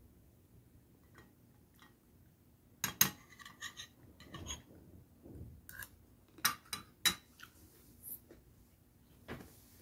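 Metal spoon clinking and scraping against a dish during a meal: a cluster of sharp clinks about three seconds in and a few more around six to seven seconds in, with quieter scraping between.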